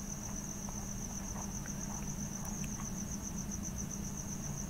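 A cricket trilling steadily: a high, thin chirp pulsing evenly several times a second, over a low hum.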